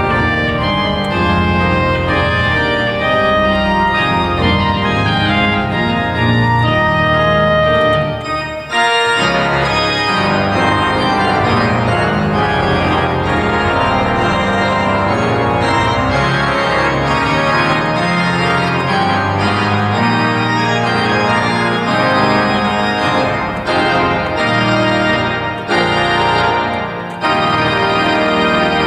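Pipe organ playing a lively piece in which the tuba and trumpet reed stops answer each other over full chords. A brief break comes about eight seconds in, after which the sound returns fuller.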